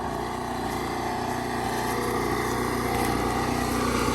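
Portable generator engine running steadily, growing gradually louder.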